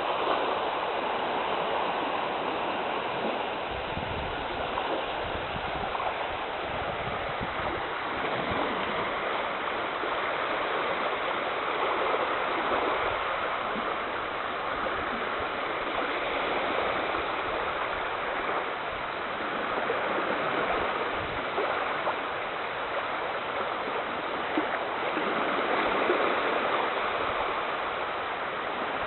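Shallow seawater sloshing and splashing steadily, swelling and easing every few seconds.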